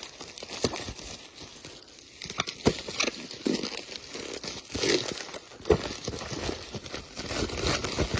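Shipping package being torn and pulled open by hand: irregular crinkling, rustling and tearing of packaging, with scattered sharp crackles.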